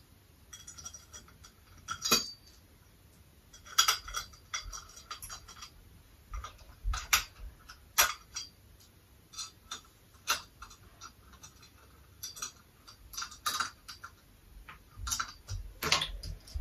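Irregular metallic clicks and clinks of screws and a hand tool against the steel tubes of an IKEA Råskog trolley being assembled.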